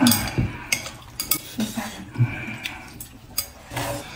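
Eating utensils clinking and scraping against a bowl or dish, with a string of short sharp clicks.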